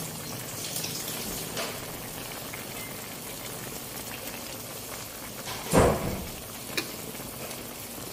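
Chicken pieces simmering in vinegar broth in an aluminium wok: a steady bubbling with light crackles. A metal ladle is stirred through the pieces, and a single loud knock comes about six seconds in, followed by a smaller click a second later.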